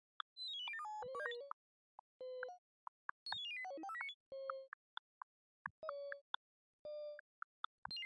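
Quiet synthesized electronic tones from a sonification of prime numbers: sparse beeps and two quick falling runs of short notes, with a few brief held tones, set apart by silences.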